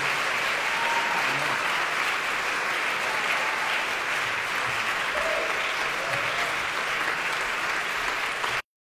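Audience applauding steadily, cutting off abruptly near the end.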